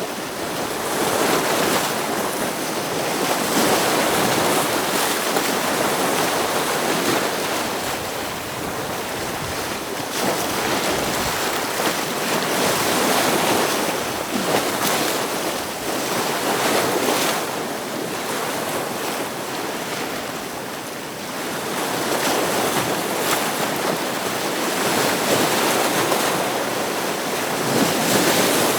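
Ocean waves breaking against rocks: a continuous wash of surf that swells and eases every few seconds.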